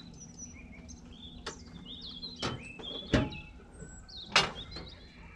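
Small birds chirping repeatedly, with several sharp knocks and clanks, the loudest about three seconds in and again just after four seconds, over a faint steady low hum.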